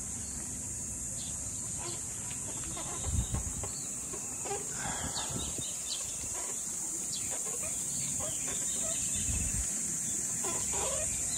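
Chickens clucking a few times, over a steady high-pitched insect buzz, with a dull low thump about three seconds in.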